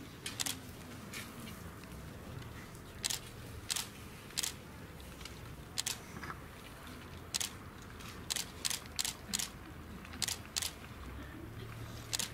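Camera shutters clicking unevenly, about fifteen short clicks, some in quick pairs, as a posed group is photographed.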